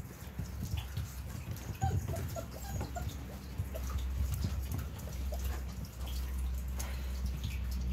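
Central Asian Shepherd Dog puppies walking about on wooden boards: light, scattered clicks of paws and claws on the wood, over a steady low rumble. A few short, faint squeaks come about two seconds in.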